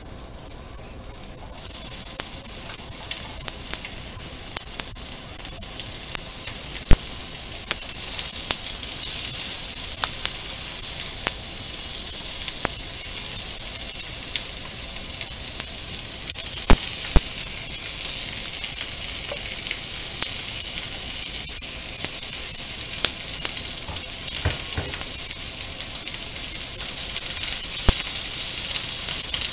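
Pork and sliced vegetables sizzling in a hot frying pan as they are tipped in and stir-fried with wooden chopsticks. The sizzle jumps up about a second and a half in. A few sharp clicks against the pan stand out over it.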